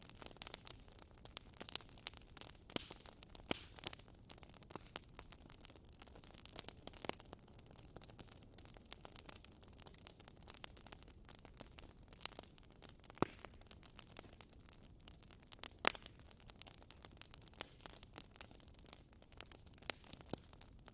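Faint, irregular crackling and sharp clicks over a low hiss, with a few louder snaps.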